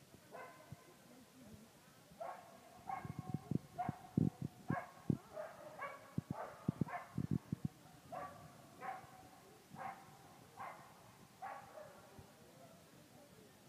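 Dog barking repeatedly, about fifteen sharp barks, densest in the first half, with low thuds among them.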